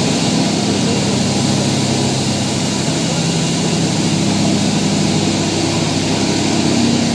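Aluminium dross pulverizer running, a belt-driven mill powered by an electric motor, giving a loud, steady machine drone with a low hum.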